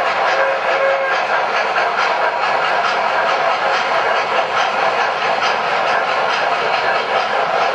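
Several O-gauge model steam locomotives running together, with a steady din of chuffing, hiss and wheels clicking over the track. A steady whistle-like note carrying over from before ends about a second in.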